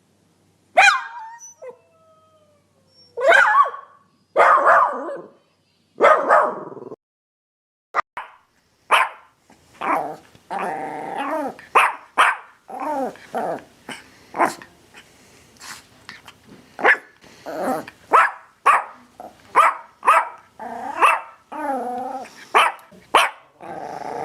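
Dog barking: a few separate, drawn-out barks, then from about a third of the way in a fast run of barks, roughly one or two a second.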